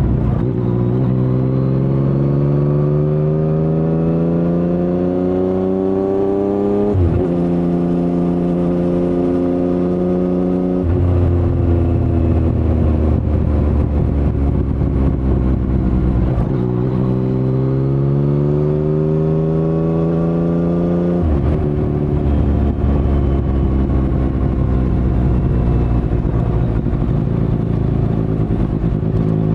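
2019 Yamaha MT-09's three-cylinder engine through an Akrapovic carbon full-system exhaust with no dB killer, accelerating hard. The pitch climbs for several seconds and drops suddenly as it shifts up, about seven seconds in and again near eleven seconds. After steadier running it climbs again and shifts up once more about three quarters of the way through.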